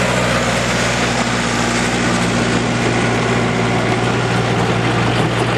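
Farm tractor engines running steadily: a green John Deere tractor pulls the weight sled away down the dirt track, with another tractor running close by. Part of the engine sound fades about four seconds in as the puller draws away.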